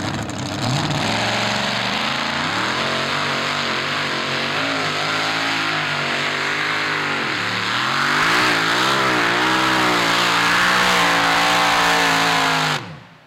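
Modified-class 950 kg pulling tractor's engine running at full throttle under load during a pull. It revs up about a second in, its pitch then wavers up and down, and it cuts off suddenly near the end.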